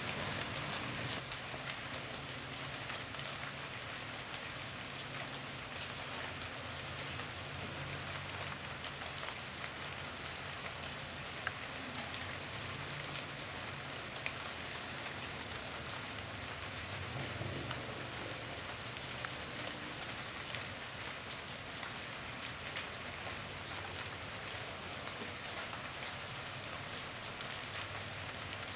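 Steady rain falling, a continuous hiss of drops with a few louder drip ticks, and a faint low drone underneath.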